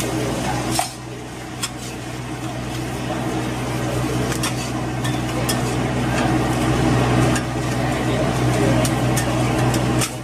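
Food frying on a hot pan or griddle, a steady sizzle with scattered sharp clinks of metal utensils against the pan, over a steady low hum.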